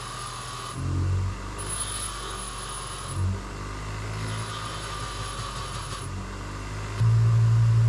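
Electric bench grinder running while an exhaust valve is cleaned on it: a steady low motor hum with two brief louder surges. About seven seconds in, a much louder, steady low hum comes on.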